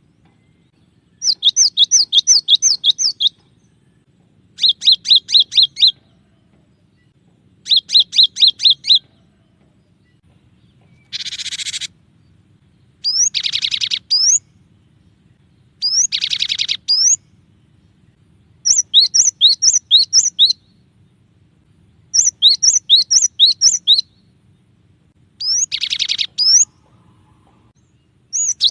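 Cinereous tit (gelatik batu) singing in bursts of rapidly repeated two-note whistled phrases, each burst about one to two seconds long with short pauses between. Some bursts are harsh and buzzy rather than whistled.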